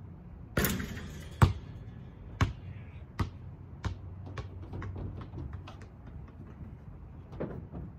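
A basketball drops through the hoop's net with a short swish, then bounces on a concrete driveway. The first bounce is the loudest, and the bounces that follow come faster and mostly quieter as the ball settles.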